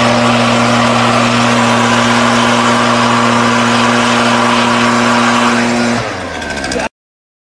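Gas leaf blower running steadily with a fixed engine note, its air blast aimed into a man's open mouth. About six seconds in the engine note falls, then the sound cuts off suddenly.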